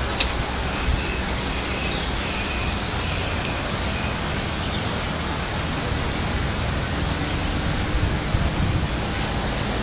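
Steady, even rush of a heavy rain and hail storm, with one sharp click right at the start.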